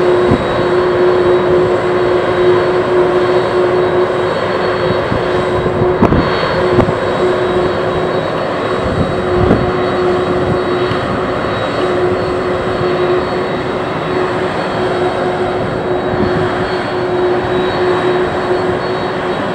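Boeing 767-300's jet engines running steadily on the ground, a continuous rushing noise with a strong steady hum and a faint high whine. A couple of brief low thumps come about six and nine seconds in.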